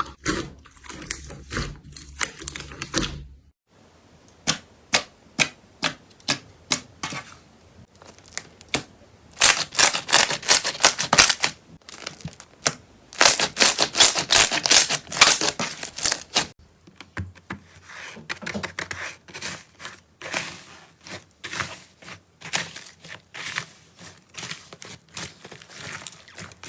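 Slime being pressed and squeezed by hand, giving a run of sharp clicks and crackles. The crackling is densest and loudest in two stretches in the middle.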